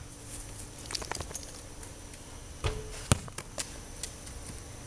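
A basketball bouncing on a concrete driveway: a few sharp thuds, the loudest about three seconds in, among lighter taps.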